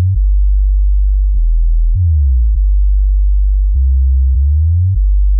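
Very loud sub-bass test tones: long, deep sine-wave notes stepping between a few low pitches every second or so, with a click at each note change.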